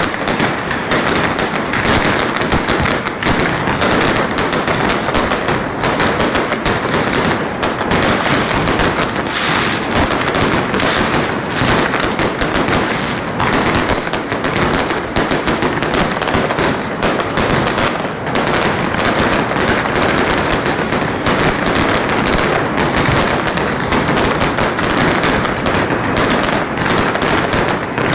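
Chinese New Year fireworks and firecrackers going off all around: a dense, unbroken crackle of rapid bangs. High falling whistles repeat about once a second through the first half, and less often later on.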